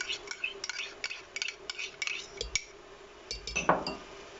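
A utensil scraping and tapping tomato sauce out of a small container into a glass blender jar: a quick run of light clicks and clinks, with one louder clunk near the end.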